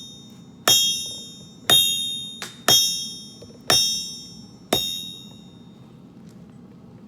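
Hammer striking hot steel on an anvil while forging a kunai blade, about one blow a second, each blow ringing out. Five strikes, then the hammering stops a little after halfway.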